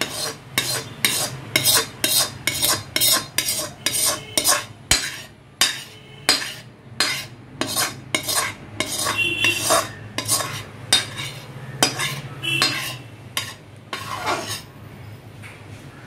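Metal spoon scraping and knocking against a steel pan, quick clinks about two or three a second that thin out near the end, as thick jaggery syrup is scraped out into a steel bowl of rice flour. A low steady hum runs underneath.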